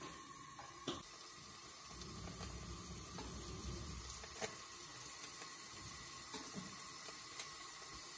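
Steady hiss of a gas oven's lit top burner flame, with a couple of faint ticks.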